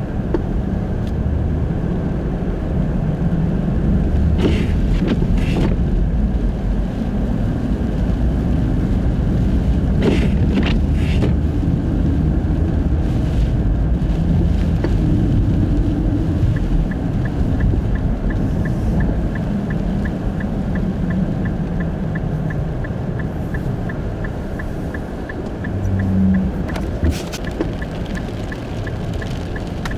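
A Nissan Fuga Hybrid being driven on studless tyres over a snowy road: a steady low rumble of road and tyre noise heard from inside, with a few brief hissing sweeps. From about halfway on, a rapid, regular ticking of the turn-signal indicator joins it.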